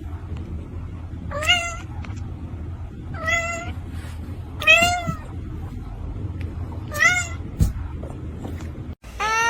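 Domestic cat meowing four times, one to two seconds apart, over a steady low hum. Near the end comes a longer, lower meow.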